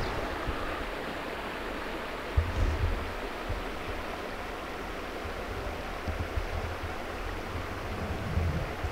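Shallow river flowing over stones, a steady rush of water. A few low thumps come about two and a half seconds in and again near the end.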